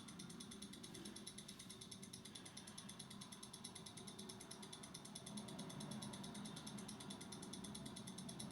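Faint, fast, steady ticking of a timer counting down, over a low room hum.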